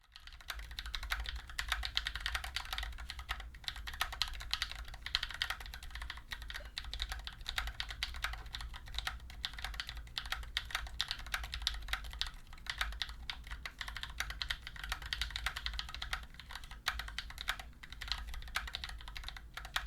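Fast, continuous typing on an Akko OceanStar 3098 full-size plastic-case mechanical keyboard with Gateron Yellow switches and PBT keycaps, giving a dense stream of key clicks. Its stabilizers are hand-lubed and it sits on a desk mat, which eases its stock rattle and hollowness. A steady low hum runs underneath.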